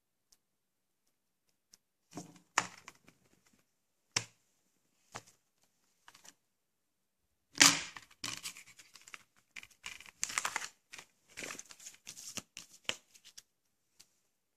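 A plastic Blu-ray case and its packaging being handled: scratchy rustling and tearing with sharp clicks. The loudest crack comes about seven and a half seconds in, followed by several seconds of busy rustling.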